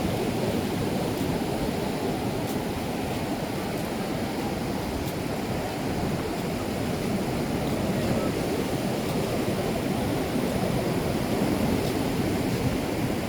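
Ocean surf on a sandy beach: a steady, even wash of waves with no single break standing out.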